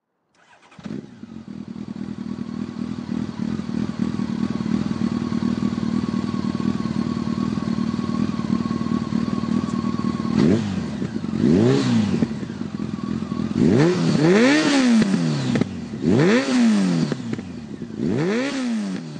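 Honda superbike engine idling steadily for about ten seconds, then revved about five times in quick blips, each rising and falling in pitch.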